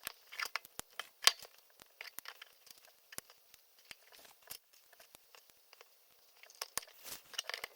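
LEGO pieces being handled and snapped together: irregular sharp plastic clicks and taps, the loudest a little over a second in.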